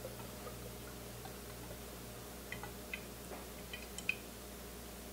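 Faint clicks and soft squishes of hands handling raw pheasant breasts on a cutting board as olive oil is drizzled on and rubbed in, the sharpest click about four seconds in, over a steady low hum.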